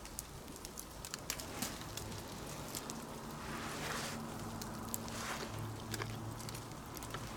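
Campfire crackling with scattered sharp pops, and a low steady hum coming in about two seconds in.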